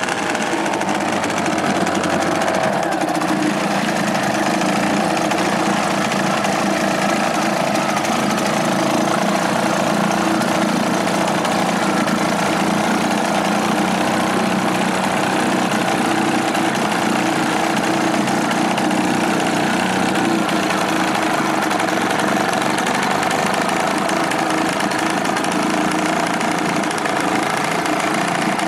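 Restored British Seagull two-stroke outboard motor running steadily in a test tank. Its speed eases down a little in the first couple of seconds, then holds even.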